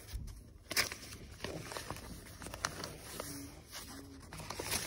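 Shot-through books being handled and searched: scattered rustles and light clicks, with one sharp knock about a second in.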